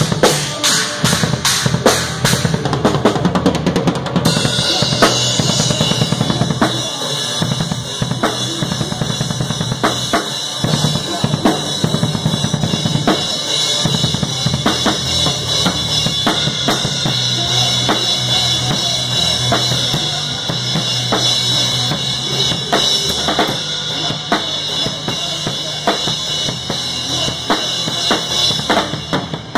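Live rock band playing a song, with the drum kit prominent: kick drum and snare beat through it. About four seconds in, the band moves into a fuller, denser section.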